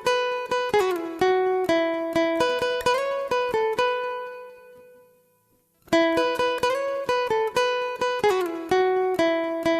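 Background music: a plucked-string melody of quick, evenly paced notes. It fades out about four to five seconds in, goes silent for about a second, then starts over.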